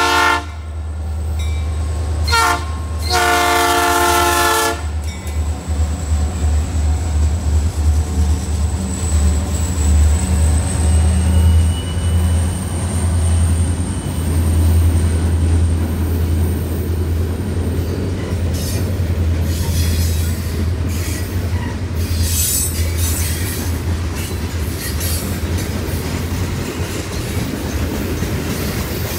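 Blue Ridge Southern diesel freight train passing close by. The locomotive horn ends a long blast at the start, gives a short toot about two seconds in, then a final long blast, the close of a grade-crossing signal. A steady low engine and rail rumble follows as the freight cars roll past, with wheel squeals and clanks in the second half.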